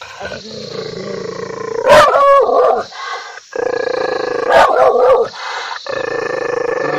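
A dog growling and snarling in long, steady stretches, breaking into two loud snarling barks: one about two seconds in and another about four and a half seconds in.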